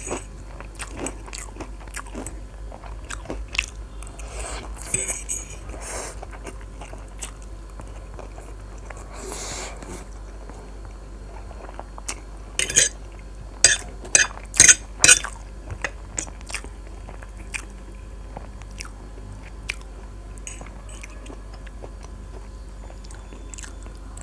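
Close-miked chewing and biting of food, with wet mouth clicks throughout and a cluster of loud, sharp crunches about halfway through.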